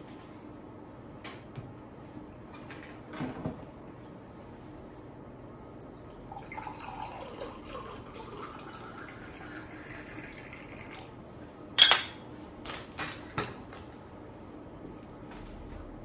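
Water poured from a glass pitcher into a tumbler, the pitch of the pour rising as the glass fills. A sharp, ringing glass clink follows, the loudest sound, then a few light knocks of glassware on the bar.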